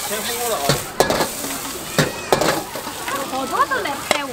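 Stir-frying in a wok over high heat: food sizzling steadily while a metal ladle and spatula scrape and knock against the wok, with several sharp clanks about a second apart.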